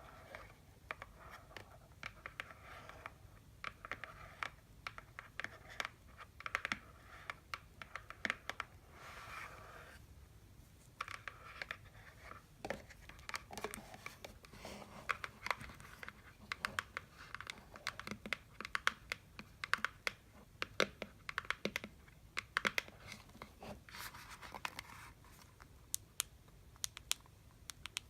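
Candy boxes being tapped: many quick, sharp taps in uneven runs, mixed with short stretches of scratching across the box surface.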